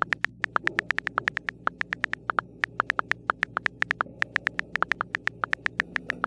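Smartphone keyboard click sounds as a text message is typed: a fast, uneven run of short sharp taps, about seven a second.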